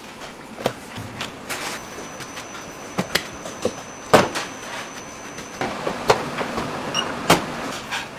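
Kitchen handling noises: irregular knocks and clatters of dough, a plastic tray and a steel bowl being handled, over a steady background noise, with a faint high steady tone for a few seconds in the middle.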